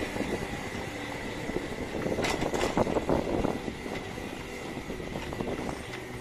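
Homemade electric go-kart with Flipsky brushless motors rolling over a rough road, its frame rattling and knocking, with a steady high whine from the electric drive. The rattling gets louder about two to three and a half seconds in.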